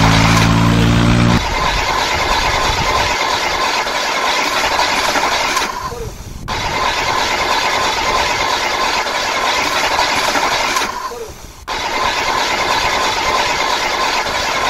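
Hard plastic toy-vehicle wheels rolling and scraping on rough concrete as a string of toy trucks is pulled along, a steady loud grinding rattle. It fades and comes back suddenly twice.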